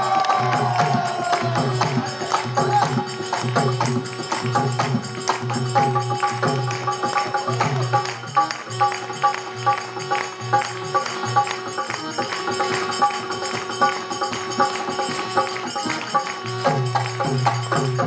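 Rajasthani folk music: a dholak drum beats a steady rhythm under long held harmonium notes, with jingling percussion. A singer's voice is heard in the first second or so.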